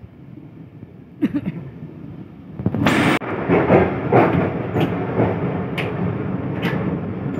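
Moving passenger train heard from inside the coach: a low rumble, a clunk about a second in, then much louder wheel-and-track noise from near halfway as the coach door opens. Wheels clack over rail joints about once a second.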